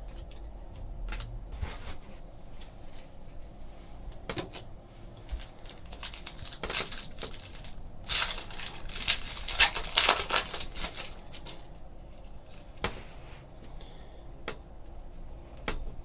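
Trading card packs and cards being handled at a table: scattered clicks and taps, with a few seconds of rustling and crinkling of pack wrappers and cards in the middle.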